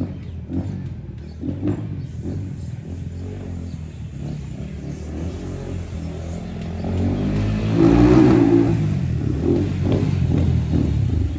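Dirt bike engine running under way and revving, rising to its loudest about eight seconds in.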